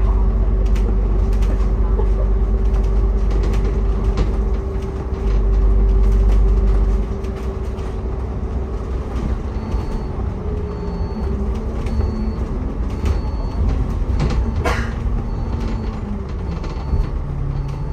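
Public-transport vehicle running, heard from inside: a heavy low rumble with a steady hum that eases off about seven seconds in. From just past halfway a short high beep repeats about one and a half times a second, with a sharp click near the end.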